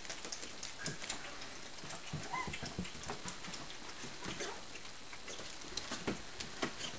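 Six-week-old Shichon puppies' paws and claws pattering and clicking on the floor as they scamper about in play, irregular light taps, with a brief faint squeak about two and a half seconds in.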